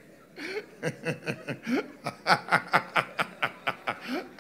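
Laughter: a run of short, rhythmic 'ha' pulses, about four or five a second, growing stronger after the first couple of seconds.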